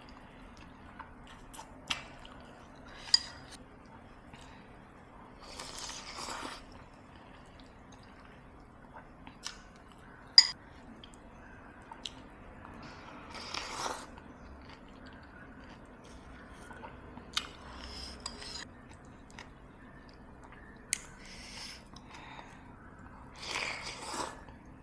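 Spoon clinking against a soup bowl a few times, sharpest about ten seconds in, with soft slurping and chewing of chicken soto between the clinks.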